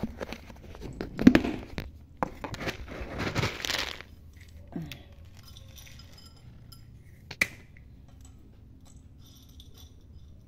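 Rustling and crinkling with small clicks and light clinks in the first four seconds, then a single sharp click a few seconds later, from hand handling around a cat's food bowl.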